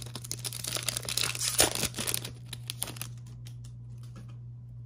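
Foil wrapper of a Topps Star Wars trading-card pack crinkling and tearing as it is ripped open, in dense crackly bursts for about the first two and a half seconds, then a few light clicks.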